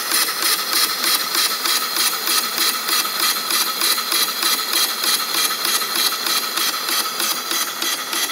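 Homemade double-acting square steam engine running steadily on live steam: a rapid, even beat of exhaust chuffs, about four or five a second, over a steady steam hiss.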